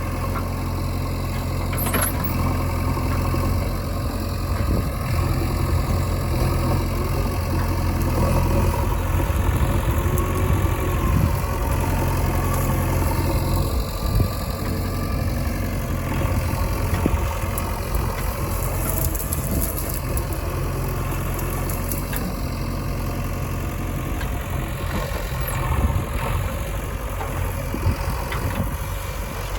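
Diesel engine of a backhoe or tractor running steadily with a low, even hum.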